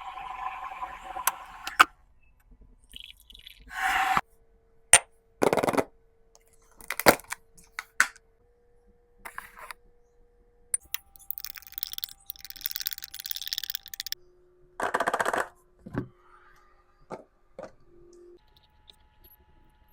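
A spoon clicking and scraping as a parrot is spoon-fed baby cereal, mixed with several short calls from the bird.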